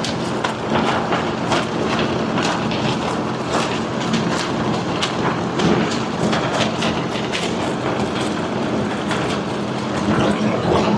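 Nylon fabric of a trekking pole tent flapping and snapping rapidly in blower-driven wind of about 60 mph, heard from inside the tent. The blower's steady hum runs underneath.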